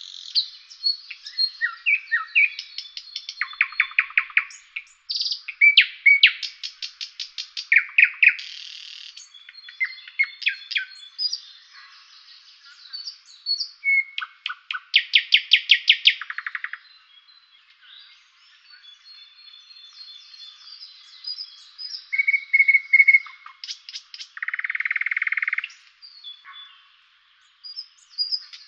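Several songbirds singing: a busy run of chirps, rapid trills and short whistled notes, one after another, with a buzzy held note near the end.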